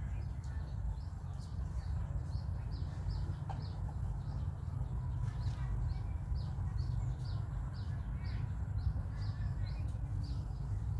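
Small birds chirping: short high chirps repeating irregularly, a few a second, over a steady low rumble.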